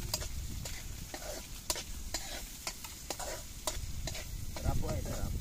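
Metal spatula stirring chopped onion and garlic sautéing in oil in a metal wok, with repeated sharp clinks of the spatula against the pan over a low sizzle.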